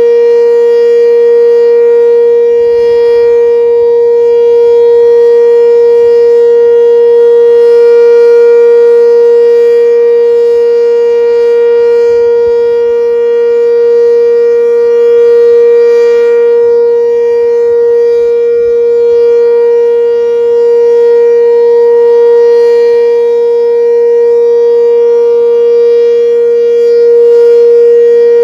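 Sentry 7V8 eight-port omnidirectional outdoor warning siren sounding its full-alert signal, a loud, steady tone that holds one pitch with only slight swells in loudness.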